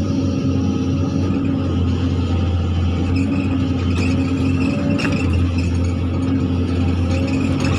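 Zoomlion hydraulic excavator's diesel engine running steadily under load, heard from the operator's cab, with a steady high whine over the low engine hum as the bucket digs and swings.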